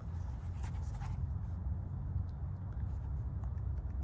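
Steady low rumble with light rustling in about the first second and a few faint taps later on.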